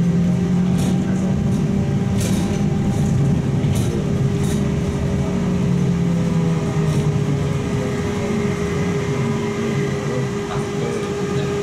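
Interior ride noise of a Trolza-5265.00 Megapolis trolleybus under way: a steady electric-drive hum with a constant tone over road and body noise, and a few short clicks and rattles.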